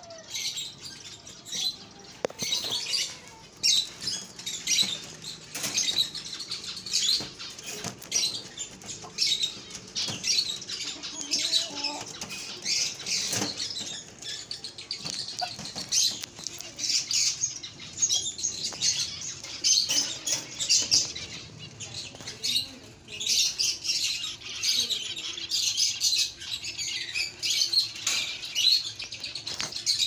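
A crowd of small cage birds chirping continuously in an aviary, many rapid high chirps overlapping, with scattered short clicks and knocks.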